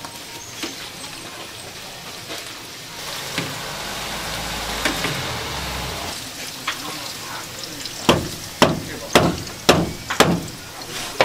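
Hot oil sizzling and bubbling around glutinous rice doughnuts deep-frying in a wide steel pan while a wire skimmer stirs them. In the last few seconds there is a series of sharp knocks, about two a second.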